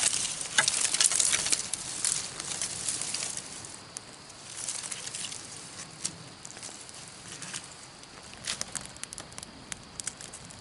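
Dry pine-needle tinder and small twigs crackling and rustling as a campfire is lit. The crackling is dense for the first three or four seconds, then thins to scattered pops as the flames take.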